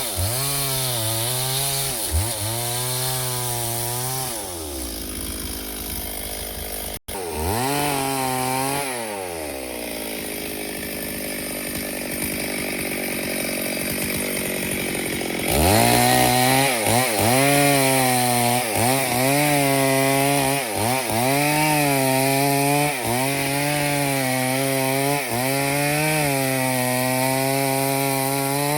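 Stihl 070 two-stroke chainsaw cutting wood: the engine pitch sags each time the chain bites and recovers between strokes. It falls back to a steady idle for several seconds in the middle, then revs up sharply and cuts again with the same repeated sagging.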